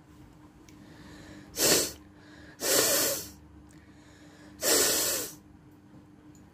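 A person blowing air hard out through the nose three times: a short blast at about one and a half seconds, then two longer ones at about two and a half and four and a half seconds.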